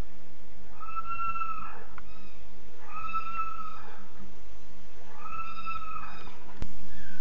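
An animal's call: one clear held note, repeated about every two seconds, three times. Near the end a sharp click, then a louder call that falls in pitch.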